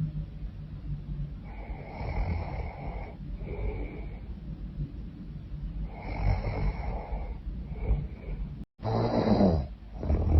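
A woman snoring loudly in her sleep: a low rasping snore on slow, heavy breaths, in two cycles of a long snore followed by a shorter one, then a louder snore near the end.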